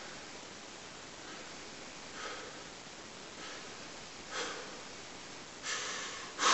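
A man breathing audibly through his nose over faint room hiss: a few short, soft breaths, growing louder near the end.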